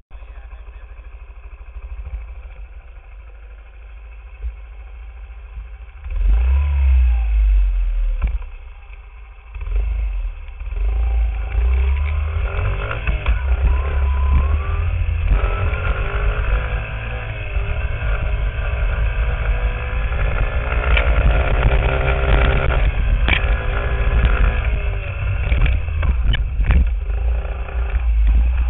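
Small 50cc dirt bike engines running and revving. The sound is quieter at first, grows loud about six seconds in, dips briefly, then runs on with the pitch rising and falling as the throttle opens and closes. A few sharp knocks come near the end.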